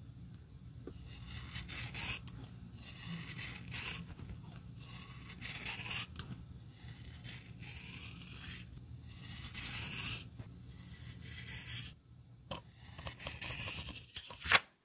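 A rust-spotted steel knife cutting along the edge of a black rubber sole sheet in repeated short strokes, about one a second. A sharp click comes near the end.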